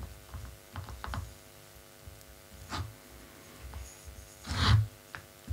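Hands pressing and smoothing air-dry clay onto a glass bottle: scattered small clicks and taps of fingers on the glass with soft low knocks on the tabletop, and one short, louder rushing noise about four and a half seconds in.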